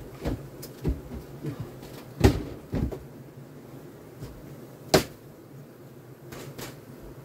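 Wooden knocks and clunks of beehive frames and hive boxes being handled, several in an irregular run, the loudest a little over two seconds in and again at about five seconds.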